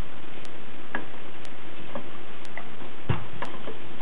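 Wooden spoon stirring chunks of potato and chicken giblets in an aluminium pressure cooker, with a few irregular scrapes and knocks against the pot, the loudest a little past three seconds in.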